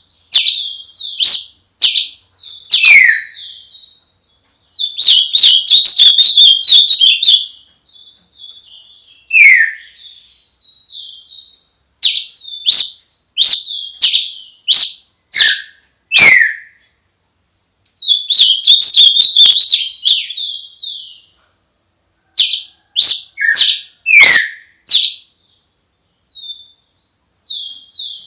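Bird song heard close and clear: loud phrases of rapid high chirps and trills, each one to three seconds long, with quick downward-sliding whistles among them and short silent pauses between phrases.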